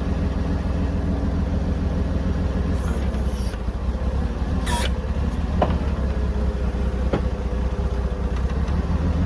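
A 1975 drill rig's engine running steadily, with a few light knocks and a short hiss about halfway through, while the boom is being lowered.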